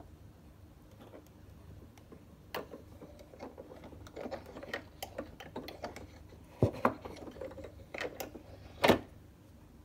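Irregular metal clicks and knocks from handling the soundbox and tone arm of a 1940 His Master's Voice Model 88A portable gramophone as they are lifted off the record and set back. The clicks start a couple of seconds in, and the two loudest knocks come about two-thirds of the way through and near the end.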